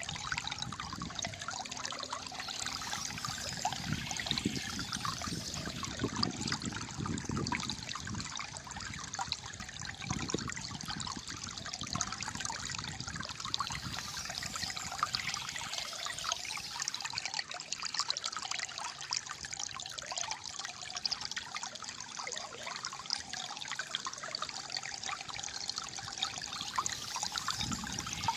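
Shallow water trickling and gurgling steadily over stones, with a few deeper gurgles now and then.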